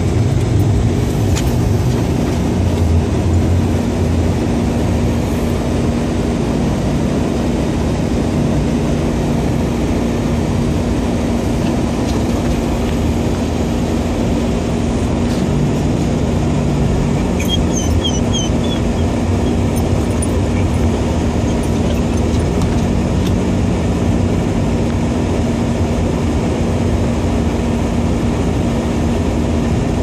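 Car cabin noise while driving on a snow-covered road: a steady low rumble of tyres and engine, with a constant low hum running underneath.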